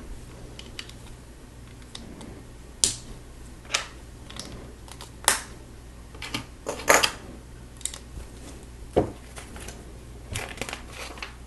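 Small plastic Lego pieces clicking as they are handled and pressed together: a series of scattered, irregular sharp clicks, with a quick cluster near the end.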